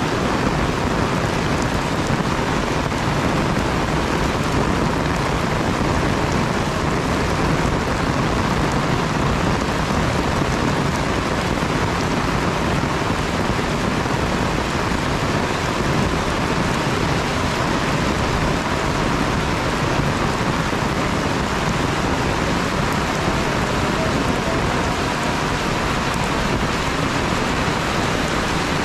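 Heavy rain falling steadily, a loud, even, unbroken hiss of rain on surfaces. A faint steady tone hums under it, the buzz that the uploader puts down to a fault in the camera stabilizer.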